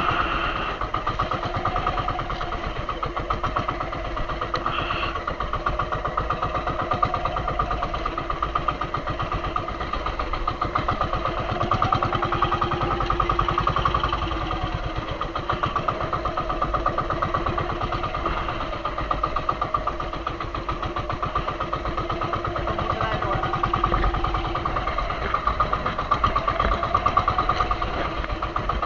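Engine of a small motorized fishing boat (bangka) running steadily at sea, an even rapid chugging.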